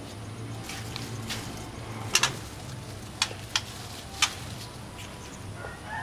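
White-rumped shamas giving a few short, sharp clicking call notes: four of them spread through the middle, the first the loudest, over a steady low hum. A faint whistled note begins near the end.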